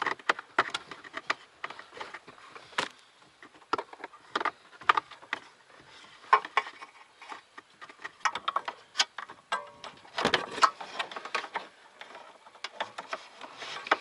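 Irregular clicks, taps and rustling of hands working an air-fuel-ratio gauge wire and a boost vacuum hose through a hole into a car's engine bay, with a louder cluster of knocks about ten seconds in.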